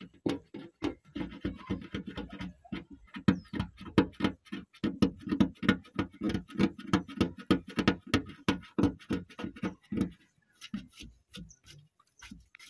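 Fingernail scratching and rubbing at flaking residue on a car's painted door panel: quick repeated scraping strokes, about three or four a second, thinning out after about ten seconds.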